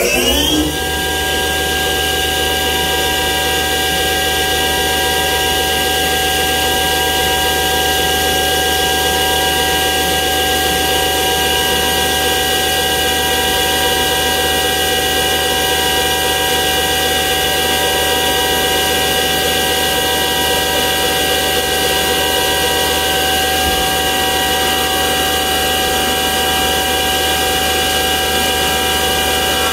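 CNC milling machine spindle driving a 1/4-inch three-flute solid carbide helical end mill as it slowly feeds down and cuts into a bore in a metal part. The whine rises in pitch as the spindle finishes spinning up at the start, then holds a steady, several-toned whine through the cut.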